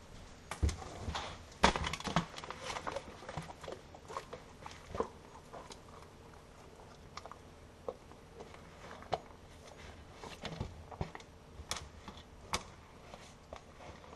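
A bloodhound getting at donuts on a kitchen counter and eating them: irregular clicks, knocks and small chewing noises, the loudest knock about two seconds in.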